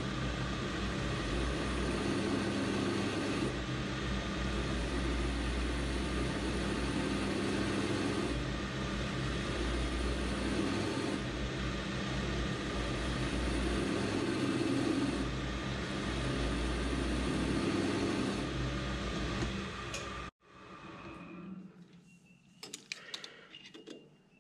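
Metal lathe running steadily while a carbide tool turns a mower deck-spindle shaft. It stops abruptly about 20 seconds in, followed by a few light metallic clicks of a caliper being put to the part.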